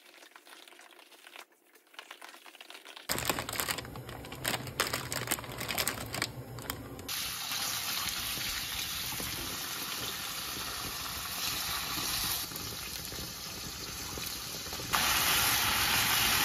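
Kitchen cooking sounds: a few seconds of clattering and handling, then a steady hiss that steps louder near the end.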